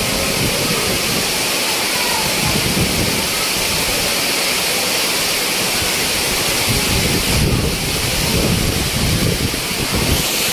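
Heavy tropical downpour driven by gusty wind: a dense, steady hiss of pouring rain with an uneven low rumble of gusts underneath.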